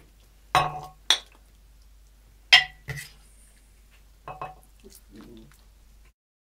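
A serving spoon clinking against the slow-cooker pot and a china bowl as stew is spooned out. Four sharp, ringing clinks come in the first three seconds, then a few softer clinks. The sound cuts off suddenly just before the end.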